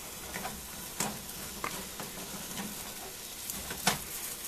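An omelet of eggs, vegetables and cheese sizzling steadily in a frying pan. A few short clicks come from the pan as the food is worked, the loudest near the end.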